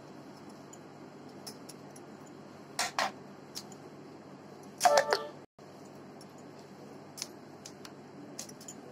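Light clicks and clinks from a kitchen knife and dough strips being handled on a stone board: a couple of soft clicks about three seconds in and a louder ringing clink about five seconds in, as metal or glass bangles touch the stone.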